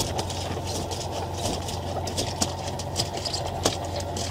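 Fishing boat's engine running at a steady idle, a low drone, with a few sharp knocks and clicks over it.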